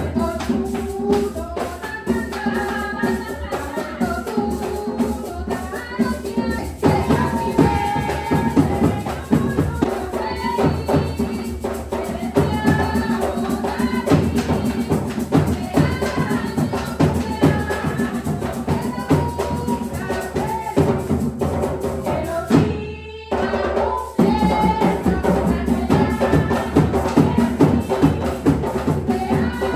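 Afro-Colombian traditional music for the dance: hand drums and shakers playing a dense rhythm, with singing voices over them. It breaks off for about a second about two-thirds of the way through, then carries on.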